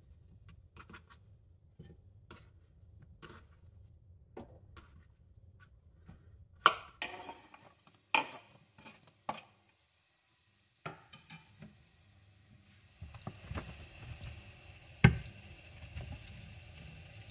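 A knife slicing a bolete mushroom on a wooden chopping board, a few soft cuts. Then several sharp knocks of a wooden board against a frying pan as crushed garlic is scraped into olive oil. From about two-thirds of the way in, hot oil sizzles steadily in the pan, with one loud clack as the sliced mushrooms are tipped in.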